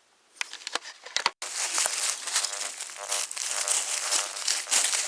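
Close crunching and crinkling of dry leaves and soil being disturbed, in a dense run of short crackles. It starts with a few sharp clicks about half a second in.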